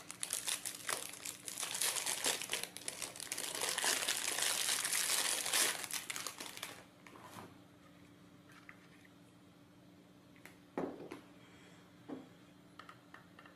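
Thin clear plastic wrapping crinkling as a battery charger is unwrapped by hand, for about the first seven seconds. After that it goes quiet apart from a few light knocks and clicks as the charger and a battery are handled.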